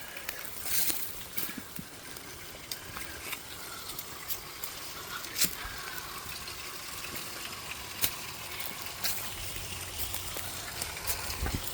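A creek running steadily, with scattered sharp cracks and crunches of footsteps on dry leaves and twigs, the loudest about five and a half and eight seconds in.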